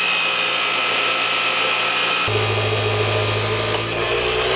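DeWalt abrasive metal chop saw cutting through steel tubing: a loud, steady grinding whine from the abrasive wheel biting into the metal. A deeper hum joins abruptly about two seconds in.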